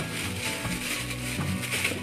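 Background music with held, steady notes, over the crinkling of a thin plastic bag being pulled off the unit.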